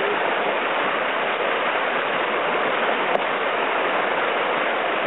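River whitewater rushing steadily through a standing wave, with one brief tick about three seconds in.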